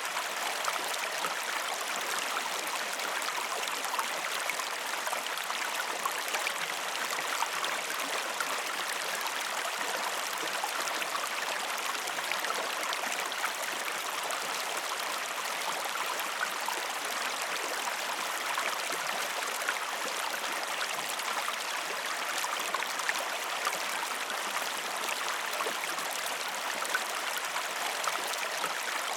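River water flowing steadily over stones, a constant babbling rush with fine splashes and trickles.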